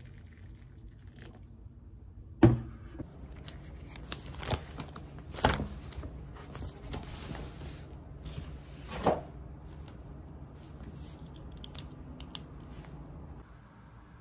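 Objects being handled: a few sharp knocks, the loudest about two and a half seconds in, with rustling and crinkling between.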